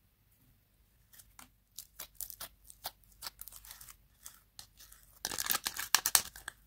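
Slime being pressed, folded and squeezed by hand, giving scattered sticky crackles and pops. A denser, louder burst of crunchy crackling comes about five seconds in.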